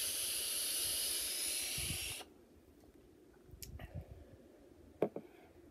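A vape box mod drawn on: a steady hiss of air and vapour through the firing atomizer for about two seconds, which stops abruptly, then a faint breathy exhale of vapour.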